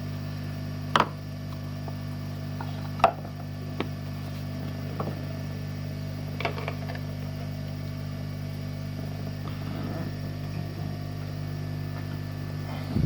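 Steady low hum of a small fan or motor, with about half a dozen light clicks and taps of tools on a circuit board, the two loudest about one and three seconds in.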